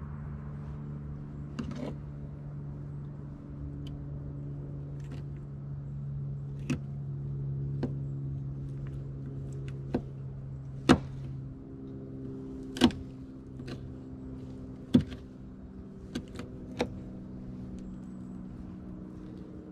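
Sharp knocks and clicks of a knife blade striking a pickup truck's bedliner-coated tailgate as a skinned squirrel is cut up on it, about ten strikes at uneven intervals, the loudest in the second half. Underneath runs a steady low mechanical hum.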